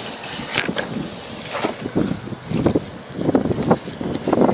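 Gusty wind buffeting the camera microphone outdoors, swelling and dropping irregularly in a steady rushing noise.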